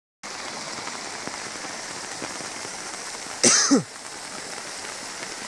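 Steady hiss of fast-flowing floodwater rushing over flooded fields. A little past halfway comes a short, loud human vocal sound that falls in pitch, louder than the water.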